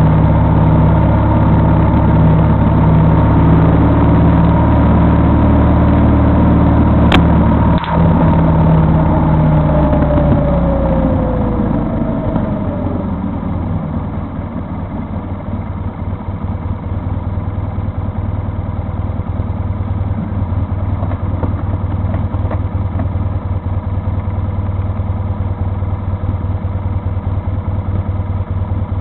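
Vehicle engine running steadily, then its note falls and the level drops about eleven seconds in, as it eases off. After that the engine runs on more quietly and rougher. A single sharp click comes about seven seconds in.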